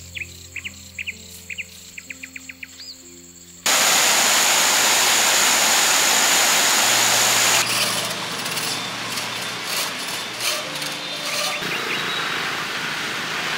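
Birds chirping in short rising calls over soft background music, then an abrupt switch to a loud, steady rushing noise that eases a little about halfway through.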